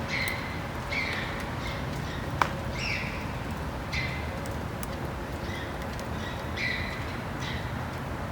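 Short, high screeching calls from an unidentified animal, repeated about once a second, each dropping slightly in pitch, over a steady outdoor background hiss. A single sharp click comes about two and a half seconds in.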